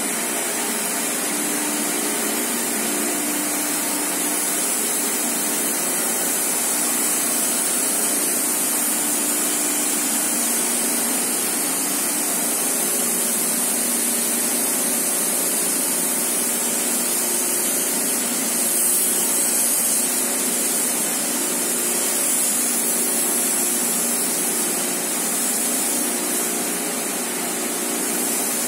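High-speed tissue-paper jumbo roll slitting rewinder running steadily at about 800 metres per minute: a continuous machine noise with a strong high hiss over a low hum.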